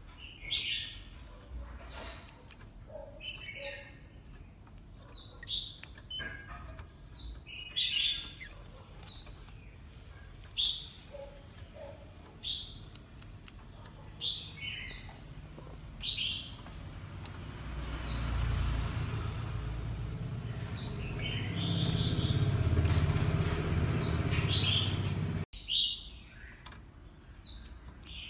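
Oriental magpie-robin calling: short, high whistled notes that sweep downward, repeated about every second or two. Midway through, a low rumble swells for several seconds and then cuts off suddenly.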